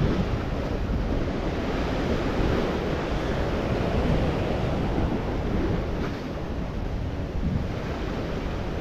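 Rough sea washing and breaking against the rocks of a breakwater, a steady surf noise, with wind blowing on the microphone.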